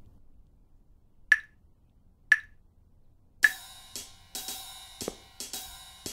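Two sharp, high clicks a second apart, then on the next beat music begins: a drum-kit beat with hi-hat over sustained chords.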